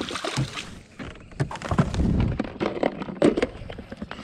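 A bass splashing back into the water beside a kayak, then a string of sharp knocks and clicks of a fishing rod and a plastic tackle box being handled against the kayak, the box's lid clicking open near the end.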